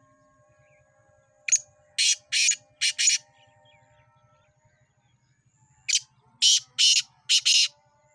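Male black francolin (kala teetar) giving its harsh, grating territorial call twice, each call a rhythmic run of about five rasping notes, some four seconds apart.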